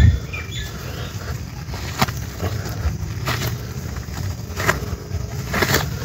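Outdoor ambience: a steady low rumble with a few sharp clicks spread through it, and short high bird chirps at the very start.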